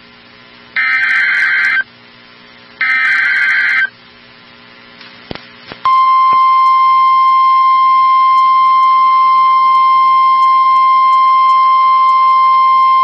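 NOAA Weather Radio emergency alert. Two loud, warbling one-second bursts of the SAME digital header come about a second apart. After a short gap and a click, the steady single-pitch 1050 Hz warning alarm tone starts about six seconds in and holds. This sequence announces a tornado warning about to be read.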